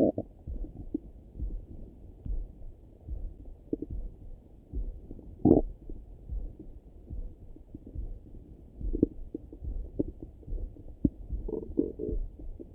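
Stomach and bowel gurgles heard through a Littmann stethoscope held to the belly. Short gurgles come and go, the loudest about five and a half seconds in and a small cluster near the end, over a low rhythmic thudding.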